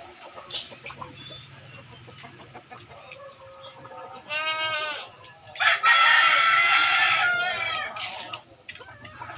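A rooster crows once, loud and about two and a half seconds long, starting a little past the middle and tailing off at its end. Just before it comes a shorter, wavering animal call.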